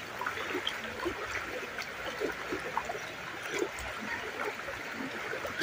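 Floodwater streaming across a road in a steady wash, with many small gurgles and splashes scattered through it.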